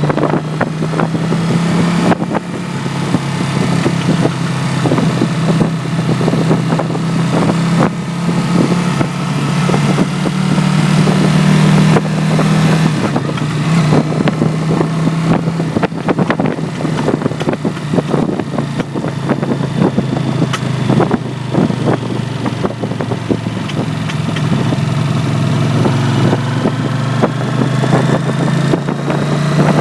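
Honda CX 500 V-twin motorcycle engine running steadily, with many short sharp cracks and pops over it. The owner hears this crackling on overrun, when the throttle is closed and the bike rolls.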